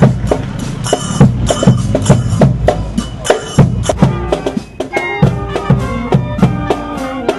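Marching band playing a steady march beat on drums, about two strokes a second. Brass instruments take up a melody about four seconds in.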